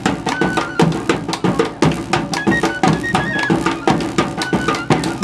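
Small folk band of strapped two-headed drums and a flute playing: dense drum beats, several a second, under a high flute melody that steps between held notes.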